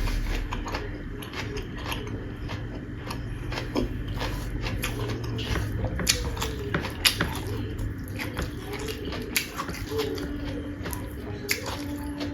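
A person eating and chewing close to the microphone: steady small crunches and wet mouth clicks, with a few sharper crunches about halfway through.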